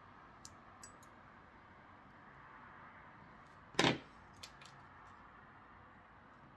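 A few light metallic clicks of steel surgical instruments being handled. About four seconds in comes one sharp clack as the tissue forceps are set down on the table, then two lighter clicks.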